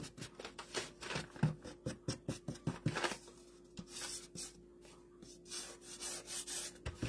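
Small makeup brush dabbing and scrubbing paint onto the edge of a wooden craft round to distress it: a quick run of short brushing strokes, busiest in the first three seconds and lighter after.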